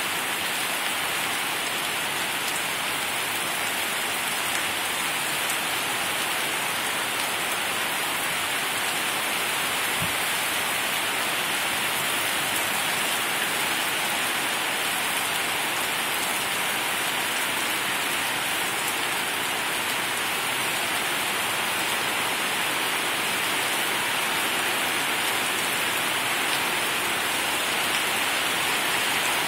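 Heavy downpour falling steadily: a dense, even hiss of rain on the surfaces around, unchanging throughout.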